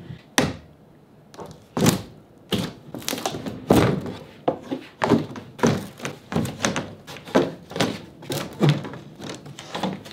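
Plywood shipping crate lid being knocked and pried loose by hand: a long, irregular string of wooden thunks and knocks, many of them a second or less apart.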